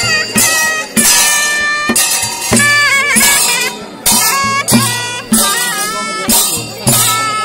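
Live accompaniment for a Newar Devi naach masked dance: a reedy wind instrument plays a wavering melody over regular drum and cymbal strokes, about one to two a second.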